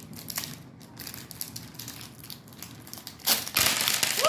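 Plastic candy wrapper of a SweeTarts Mini Chewy pack crinkling as it is worked open, with small crackles at first and a louder burst of crinkling and tearing near the end.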